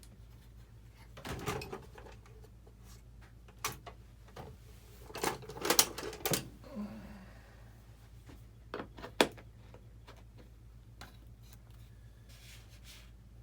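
Scattered clicks, taps and knocks of hand tools and small model parts being handled at a workbench, with a cluster of knocks about five to six seconds in and a sharp click a little after nine seconds. A faint steady low hum runs underneath.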